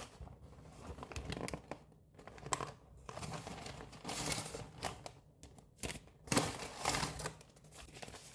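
Paper pastry bag and food packaging crinkling and rustling in irregular bursts as hands open the bag and pull out the box inside, loudest about two-thirds of the way through.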